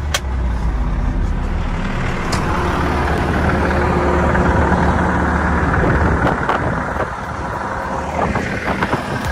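Heavy truck's diesel engine running steadily with a low, even hum.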